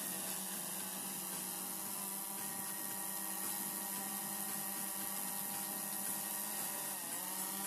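DJI Mavic 2 Zoom quadcopter hovering, its propellers giving a steady buzzing whine; near the end the pitch dips briefly and comes back up as the motors change speed.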